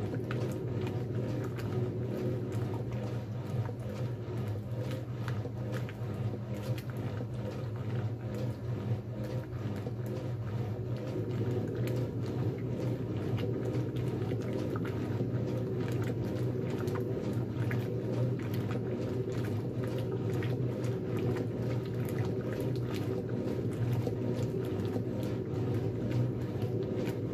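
1957 Blackstone 350 automatic washer in its wash agitation: the motor and transmission give a steady low hum, and soapy water sloshes and splashes around the clothes in the stainless tub.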